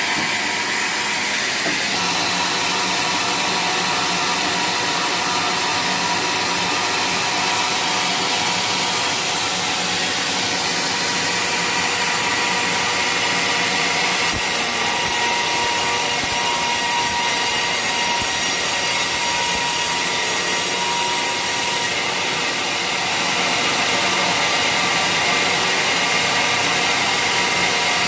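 Sawmill saw running and cutting through waru (sea hibiscus) wood: a steady, loud mechanical whine with rasping cutting noise, a little louder near the end.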